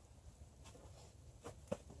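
Log campfire crackling faintly, with a few sharp, isolated pops; the loudest comes about three-quarters of the way through.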